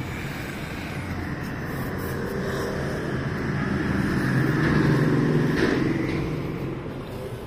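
KTM 390 Duke's single-cylinder engine running through an aftermarket Akrapovic-branded slip-on silencer. Its note swells louder toward the middle and eases back down.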